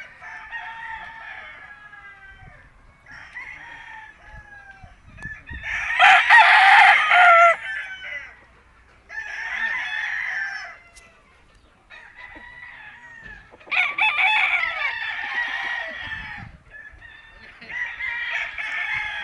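Several roosters crowing one after another, some crows overlapping, the loudest about six seconds in.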